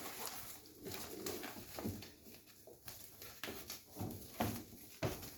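Puppies moving about in their cage, with faint scattered knocks and scratches and soft little vocal noises.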